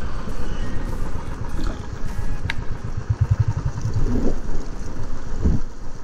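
Strong storm wind buffeting the microphone on a moving motorcycle, over the rumble of its engine.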